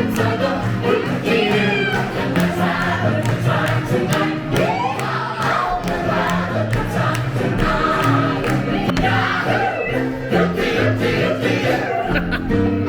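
Live stage show music: several performers singing together over instrumental accompaniment, with the audience's voices mixed in.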